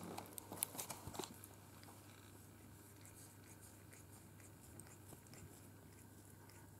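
An American Shorthair cat chewing, a quick run of crisp crunchy clicks in the first second or so. It then goes near quiet, with only a few faint ticks while the cat licks its paw.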